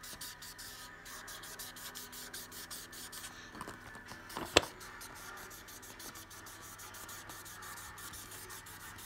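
Magic-ink felt-tip marker scribbling back and forth on a colouring-book page in quick, even strokes, with one sharp click about halfway through.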